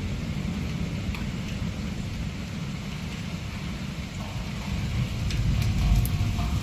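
Low rolling thunder rumbling on through rain, swelling toward the end, with a few sharp ticks.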